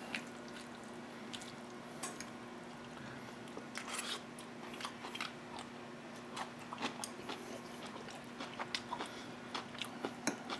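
A person eating beef stir fry: chewing, with scattered sharp clicks of a metal fork against a ceramic plate, over a steady low hum.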